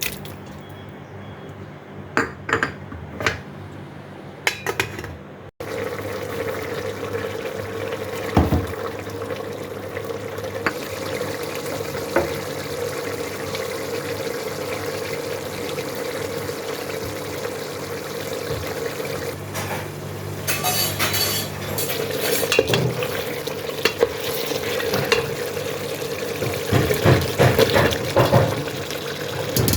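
Food frying in a pot with a steady sizzle while a metal spoon stirs and clinks against it. The first few seconds hold only a few utensil clinks; the sizzle begins suddenly about five seconds in, and the stirring clatter grows busier near the end.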